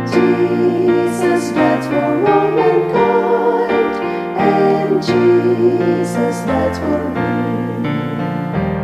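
Instrumental interlude of a gospel hymn tune played on a piano-like keyboard, with sustained chords that change about once a second.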